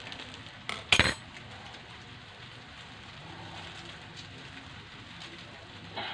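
A sharp metallic clank of kitchen utensils about a second in, then a faint steady sizzle of noodles frying in a steel wok.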